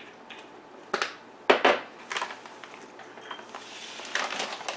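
A few short crunches and knocks, a pepper grinder and kitchen items handled on a counter, then a plastic package rustling near the end.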